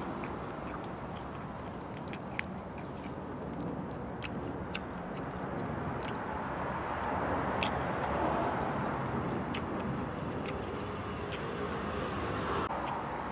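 Cooked lobster shell being cracked and peeled apart by fingers, with scattered sharp cracks and clicks, and chewing, over a steady background noise.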